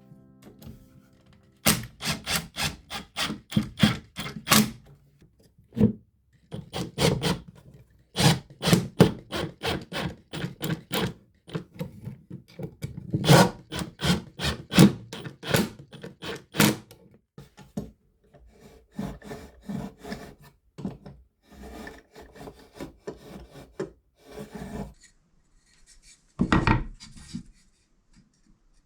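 Quick rubbing strokes on wood, in runs of several strokes with short pauses between them. The strokes grow lighter in the second half, with one heavier stroke near the end.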